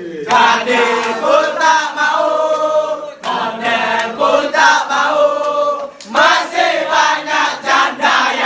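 Singing in three phrases, each a few seconds long, with sharp percussive ticks.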